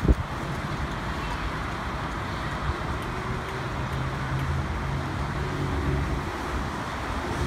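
Street traffic at a signalled intersection: a steady hiss of passing cars, with a low engine hum through the middle as a vehicle idles or moves off. A single sharp knock right at the start.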